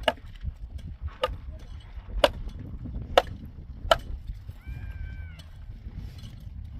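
A small hand tool striking hard, stony ground, five sharp blows about a second apart, then stopping.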